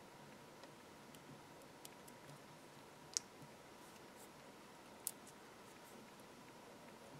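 Near silence with a few small, sharp clicks, two of them louder, about three and five seconds in: metal tweezers tapping and picking at paper pieces and foam sticky pads on a cutting mat.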